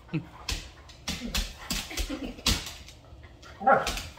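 Doberman making short vocal sounds while play-fighting, mixed with sharp taps and scuffs on a hardwood floor, with one louder cry near the end.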